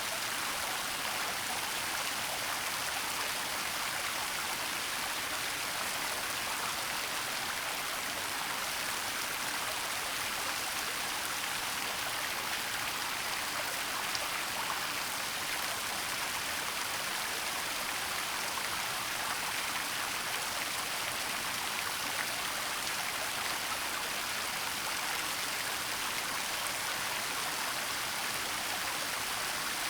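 Waterfall and its stream rushing steadily, an even hiss of falling and splashing water with no breaks.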